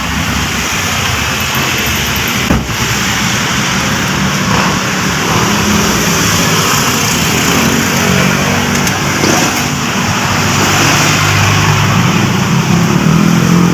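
A motor vehicle engine running, with a steady hiss over a low hum whose pitch wavers and grows a little stronger in the second half. A single sharp click sounds about two and a half seconds in.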